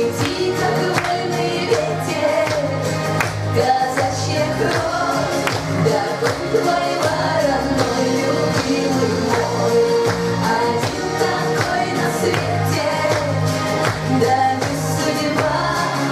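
A woman singing into a microphone over amplified backing music with a steady beat.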